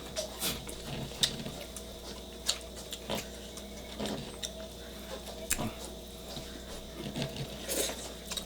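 Close-miked eating: chewing and sucking on spicy chicken feet, heard as irregular wet clicks and lip smacks.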